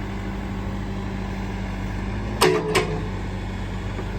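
The Case 580 Super M Series 2 backhoe loader's 95-horsepower turbo diesel running steadily while the backhoe is worked. A little past halfway come two sharp knocks, about a third of a second apart.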